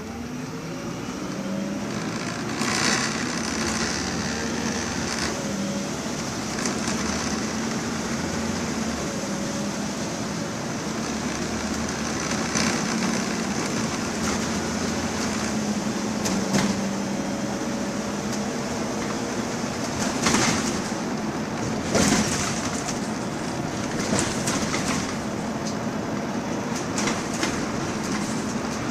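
MAN 18.240 single-deck bus's six-cylinder diesel pulling away and running steadily as it drives, heard from inside the saloon. Now and then a sharp knock or rattle from the bus body, the loudest about twenty seconds in.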